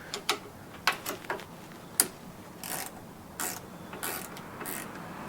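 Metal hand tools clinking sharply a few times, then a 10 mm wrench ratcheting in repeated short strokes, about one every two-thirds of a second, as a nut is worked on the mower's throttle assembly.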